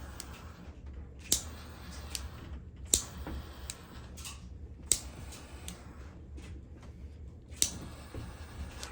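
Lighter clicking repeatedly while heating heat-shrink tubing over a soldered wire joint: single sharp clicks every second or two, four of them loud and several fainter.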